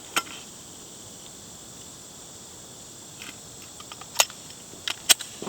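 A steady high-pitched chorus of insects, with a few short sharp clicks. The loudest clicks come a little past four seconds in and again about five seconds in.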